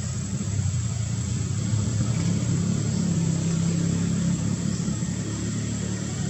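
A low, steady engine rumble of a motor vehicle running.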